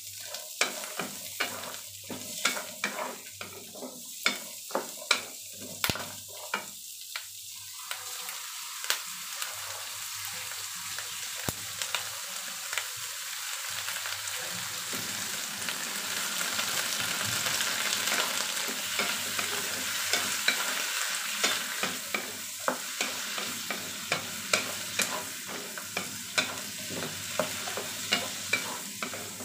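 Vegetables sizzling in hot oil in a nonstick wok while a wooden spatula stirs them, tapping and scraping against the pan several times a second. The tapping thins out midway as the sizzle grows louder, then picks up again in the last third.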